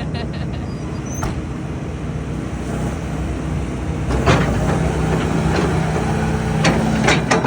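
A steady engine hum, with several sharp clicks and knocks in the second half, a few of them close together near the end.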